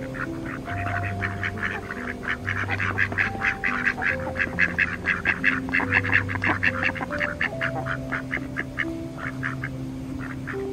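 Mallard ducks quacking in a flock, many short calls overlapping several times a second. The calls are loudest through the middle and thin out to scattered quacks near the end, over soft background music.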